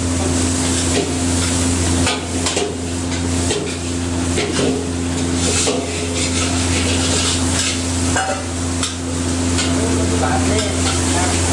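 Fried rice sizzling in a wok over a gas burner while a metal ladle stirs and scrapes it, with irregular clinks of metal on the wok. A steady low hum runs underneath.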